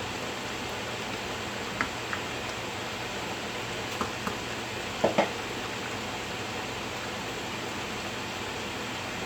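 Menudo simmering in its pan under a steady hiss, with a utensil clinking against the pan in three quick pairs, the loudest pair about five seconds in.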